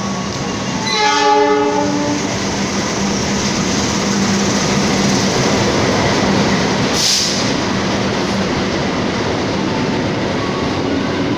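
Diesel locomotive sounding its horn once, for about a second, as it runs through the station without stopping. Then the loud, steady rumble and wheel noise of the locomotive and its passenger coaches passing close by.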